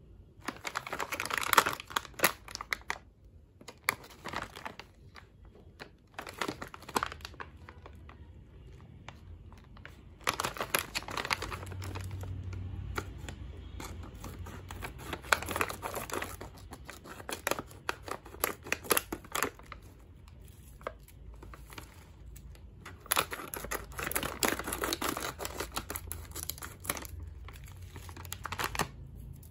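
Plastic snack pouch crinkling and rustling in irregular bursts as it is handled, with scissors cutting through the plastic along its top and the wrapped bars inside rustling once it is open.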